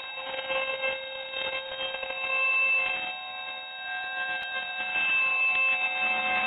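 Steady electronic whine: several high, unchanging tones sounding together, picked up by a rocket's onboard camera.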